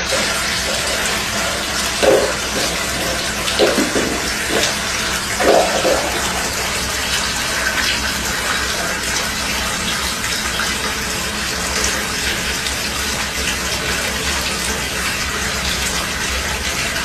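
Steady running water, with a few brief louder sounds in the first six seconds.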